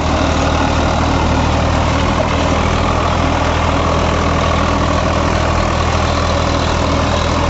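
Swaraj 855 FE tractor's diesel engine running steadily at about 1600 rpm under heavy load, driving a 7-foot rotavator through hard black clay.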